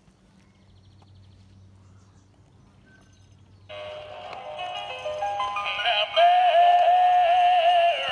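A singing Christmas duck toy starts up: a song begins suddenly about a third of the way in, and from about halfway a high, wavering synthetic-sounding singing voice comes in over the music, growing loud. Before the song, only a faint low hum.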